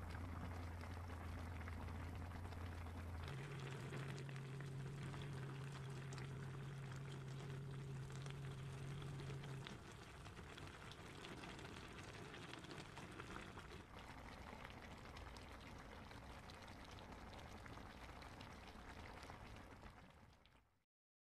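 Braised chicken and ripe kimchi stew simmering in a pan, a steady bubbling and crackling. A low hum runs under it, changing pitch about three seconds in and stopping about halfway through, and the sound fades out near the end.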